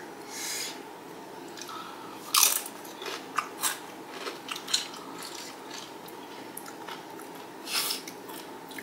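Close-miked crunching and chewing of XXtra Flamin Hot Doritos tortilla chips, with a handful of sharp crunches spread through. The loudest crunch comes about two and a half seconds in and another near the end.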